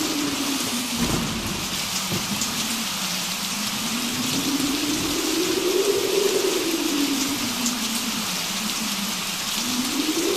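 Steady rain falling, with a single low wavering tone underneath that slowly rises and falls and climbs again near the end.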